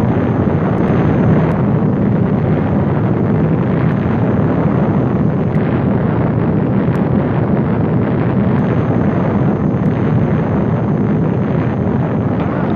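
A steady, loud rumbling roar: one dense, unbroken noise strongest in the low range, with no separate hits or pauses.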